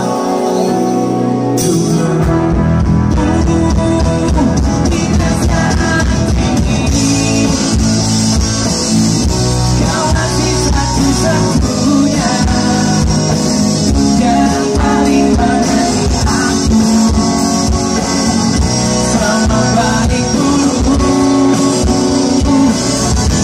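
Pop-rock band playing live through a concert PA: electric guitar, bass and drums, with singing.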